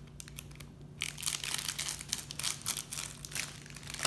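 Plastic squishy packaging crinkling and tearing as it is opened by hand, starting about a second in and going on in quick, uneven crackles.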